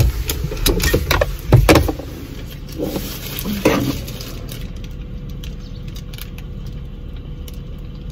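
A soft plastic mailer package crinkling and rustling as it is handled, with a few knocks and bumps in the first two seconds, over a low steady rumble.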